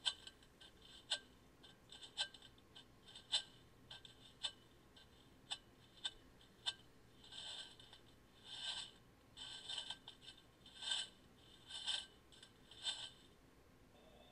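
Sharp clicks and ticks at irregular intervals, then a run of short scratchy, rattling bursts about once a second, ending just before the end.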